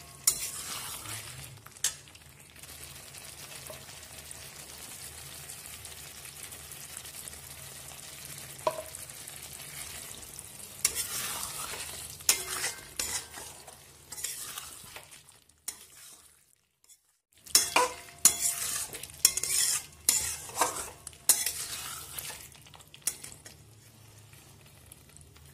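Potato curry sizzling in a metal kadai, then a metal spatula stirring and scraping against the pan in two spells of short strokes, with a silent gap of about two seconds between them.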